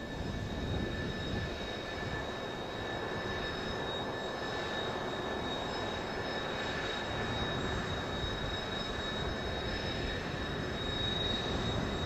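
Military jet engines running at ground idle, from F-4 Phantoms and a taxiing Kawasaki T-4: a steady rumbling roar with a constant high whine over it.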